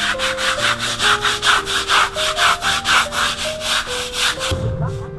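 Hand scrub brush scrubbing wet, soapy, mold-stained concrete in quick back-and-forth strokes, about five a second, stopping near the end. Soft background music plays underneath.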